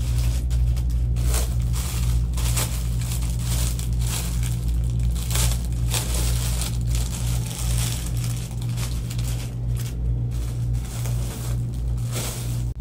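Plastic bags crinkling and rustling in irregular bursts as plastic-wrapped clothes are handled and unpacked, over a steady low hum.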